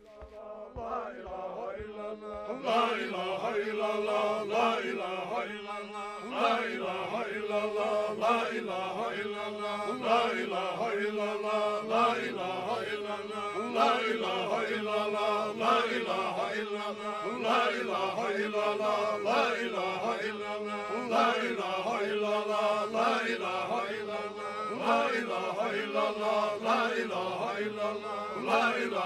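Men's voices chanting together over a steady held drone note, a rhythmic repeated chant that swells in over the first few seconds.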